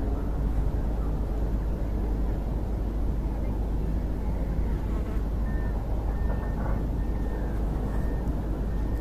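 Steady low rumbling noise of wind buffeting the microphone, with no clear engine note in it.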